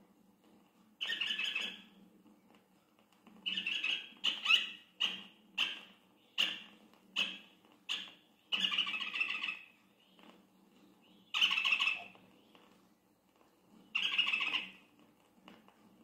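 João-de-pau (rufous-fronted thornbird) calling: loud, harsh squawking notes, some half a second to a second long, with a quicker run of short notes, about one to one and a half a second, in the middle.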